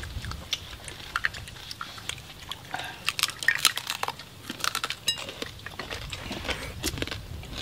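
Scattered clicks and crunches of people eating at the table: crisp skin of jar-roasted pork belly being bitten and chewed, with cutlery and dishes clinking now and then.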